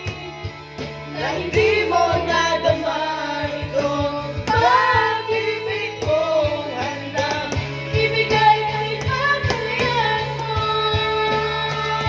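A song with a singing voice over a steady beat and bass.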